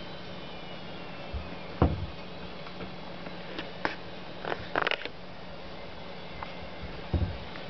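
A cat pawing and pulling at a cabinet door's metal handles, so the door knocks against its frame: a dull knock about two seconds in and another near the end, with sharper clicks and rattles of the handle around the middle.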